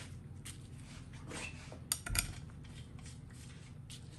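Light metallic clicks and rustling of steel bolts being set by a gloved hand into a GM TH350 transmission's valve body, with two sharper clicks about two seconds in.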